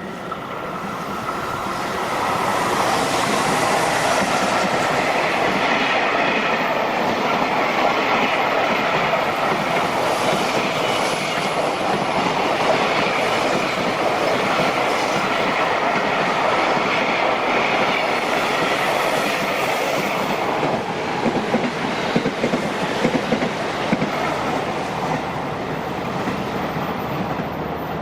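JR Freight train passing on the track: a steady heavy rumble of the wagons that builds over the first few seconds and holds, with sharper wheel clacks a little after the middle.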